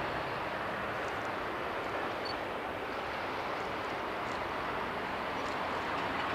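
Steady jet engine rush from an Airbus A380's Rolls-Royce Trent 900 turbofans at low taxi power, an even rushing sound without a clear whine.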